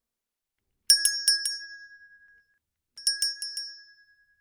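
Bright bell-like chime sound effect: a quick run of about four strikes that rings out and fades. It plays twice, about two seconds apart.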